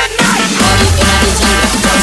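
Electronic dance music from a breakbeat DJ mix, with a fast beat over a heavy held bass line. The bass shifts to a new note about half a second in.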